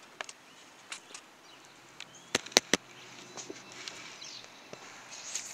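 Scattered sharp clicks and taps from a spinning rod and reel being handled for a cast, the loudest three in quick succession about two and a half seconds in. Faint bird chirps can be heard behind them.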